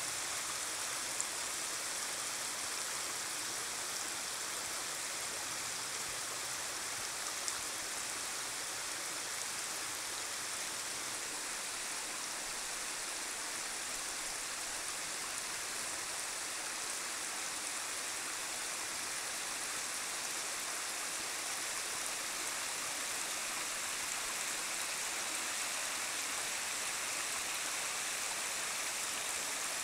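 Creek water running in a thin sheet over bare rock: a steady rushing hiss, with two faint clicks in the first several seconds.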